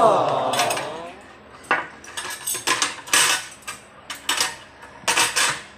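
Metal spoon and fork clinking and scraping against plates as a meal begins, a scattered string of sharp clicks. It opens with a drawn-out 'aww' voice sliding down in pitch.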